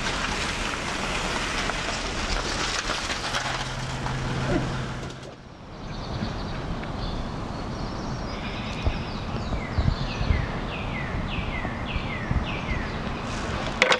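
Street traffic noise with a car engine passing, ending abruptly about five seconds in. Quieter outdoor ambience follows, in which a bird gives a quick series of short descending chirps near the end.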